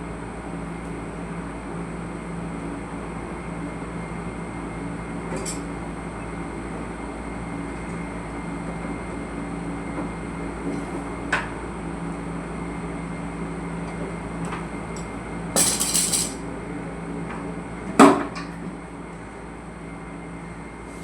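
A steady mechanical hum with a few scattered clicks, a brief rattle about two-thirds of the way through, and one sharp knock a few seconds before the end.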